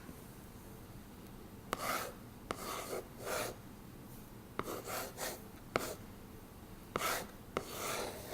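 A pen with its tip retracted scratching across a textured surface in a run of short strokes with brief pauses between them: a word, "red", being handwritten.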